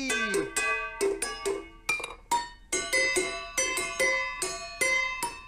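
Metal saucepans of different sizes struck in quick succession with wooden spoons, played as a tune. Each strike leaves a ringing note of its own pitch, from clangs to high tinkles, and a falling boing dies away in the first half second.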